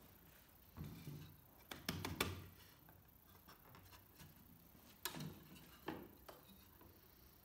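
Short knocks and clicks of a hardwood frame and a metal pipe clamp being handled and adjusted on a workbench: a few taps about a second in, a loud cluster of knocks around two seconds in, and two more single knocks near five and six seconds.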